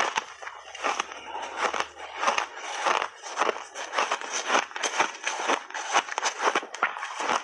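Crunchy refrozen pink berry shaved ice being chewed close to a clip-on microphone: a fast, irregular run of sharp crunches.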